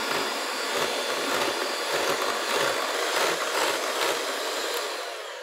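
Electric hand mixer running steadily, its beaters whipping stiff egg whites with added egg white powder in a bowl. The motor fades out over the last second.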